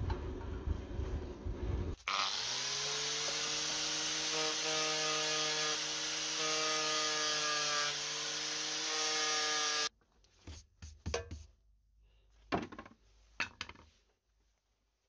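Angle grinder with a sanding pad starting up about two seconds in and running steadily against a steel knife blade, then cutting off suddenly. Before it a low rushing noise from the forge, and after it a few light clicks and knocks of handling.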